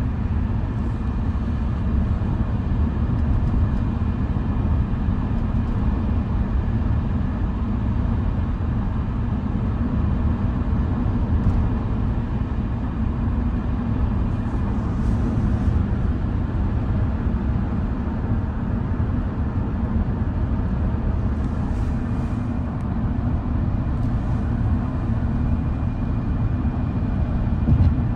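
Steady road and tyre rumble inside the cab of a Tesla Cybertruck cruising at highway speed on cruise control, towing a loaded tandem-axle trailer.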